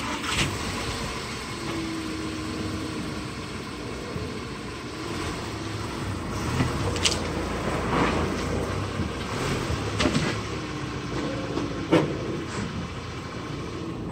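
Volkswagen Beetle's engine running at low speed as the car creeps forward up onto plastic drive-on ramps, with a held tone rising and fading twice and several sharp knocks along the way.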